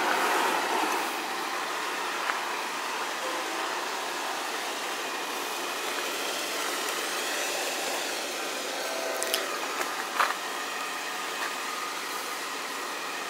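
Steady background traffic noise, with a few short clicks about two seconds in and again after the middle.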